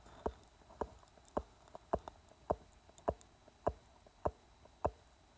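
A mechanical heart valve clicking with each heartbeat, heard through the open mouth: a steady run of sharp clicks at about 100 a minute, with fainter clicks between them. The valve is an On-X, as far as the owner knows.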